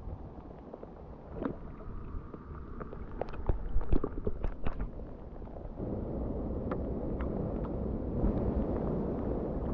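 Wind rumbling on the microphone in steady rain, with scattered sharp light taps. About six seconds in, a denser steady hiss sets in.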